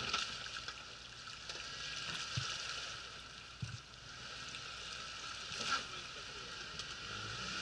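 Suzuki Escudo heard from a distance climbing out of a water-filled pit in snow: a steady hiss of the wheels churning slush and water, with the engine faint underneath and a few soft knocks.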